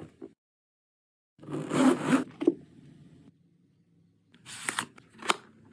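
Unboxing handling noises: one harsh ripping or zipping rasp about a second and a half in, then a few short rasps and sharp clicks near the end.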